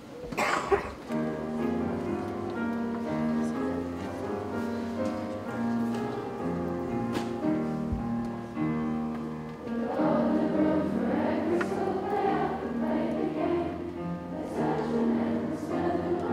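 A brief shuffle as the students get to their feet, then an instrumental introduction of held chords. About ten seconds in, the hall of schoolgirls joins in singing the school song.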